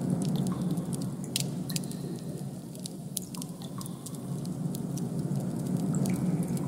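Designed ambient soundscape: a steady low rumbling noise with small clicks and crackles scattered through it.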